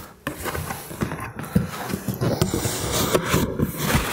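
Cardboard shipping box rustling and scraping as it is lifted up off a unit held in foam packing blocks, a steady irregular crackle of cardboard and foam rubbing.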